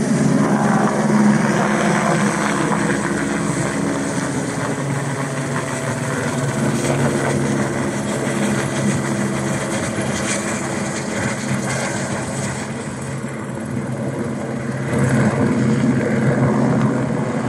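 Helicopter flying overhead with an underslung load on a long line: a steady rotor and engine drone that swells a little near the end.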